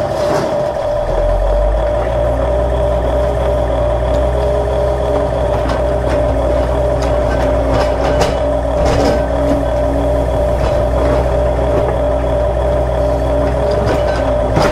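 Radio-controlled toy excavators running while the Huina digs: a steady engine-like drone over a low hum, with a wavering higher whine that comes and goes and a few short clicks and scrapes.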